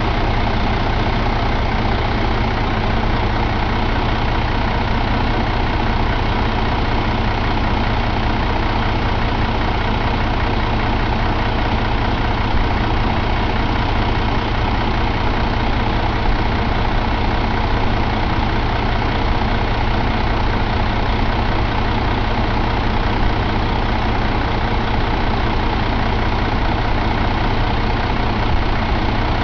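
2007 Mercedes-Benz MBE4000 inline-six diesel engine idling steadily, heard close up in the truck's engine bay.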